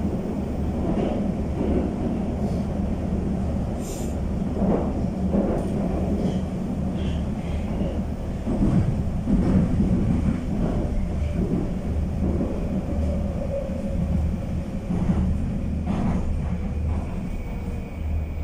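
Moscow Metro 81-775/776/777 train running between stations, heard from inside the car: a steady low rumble of wheels on rail with scattered clacks, and a faint whine that slowly falls in pitch in the second half.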